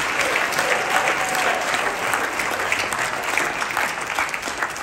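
A congregation applauding, a dense patter of many hands clapping that thins out and fades near the end.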